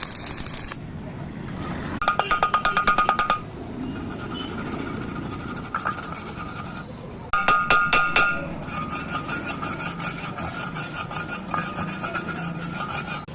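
Metal being struck: two quick flurries of sharp metallic clinks with a ringing tone, about two seconds in and again near the middle, then lighter, steady tapping.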